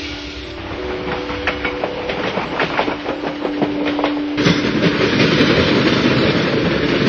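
Steam train sound effect: wheels clicking on rail joints, the clicks coming faster, then about four and a half seconds in a sudden louder, steady rattle of the train running at speed.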